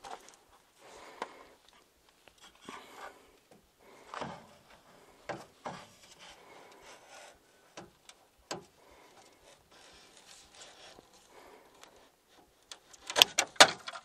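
Klein heavy-duty cable cutters clipping through the three AC charging wires: scattered sharp snips and clicks with rubbing of the wire bundle, and a cluster of louder sharp snaps about a second before the end.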